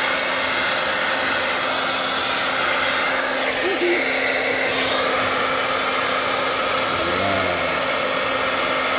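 Hand-held hair dryer running on high, blowing a steady rush of air with a steady low hum under it, its nozzle held against a bicycle frame to heat and soften a vinyl sticker.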